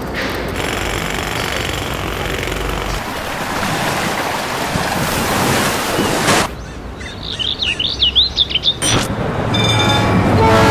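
An edited montage of sounds: a steady noisy rumble that cuts off suddenly after about six seconds, then about two seconds of quick bird-like chirping, then a train's wheels starting to squeal near the end.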